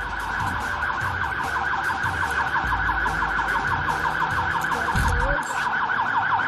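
Police siren in a fast yelp: a rapid rising sweep repeating several times a second, held at a steady level.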